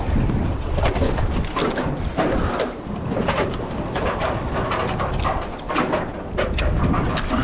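Wind buffeting the microphone on an open boat, with a run of short, sharp clicks and ticks scattered through it.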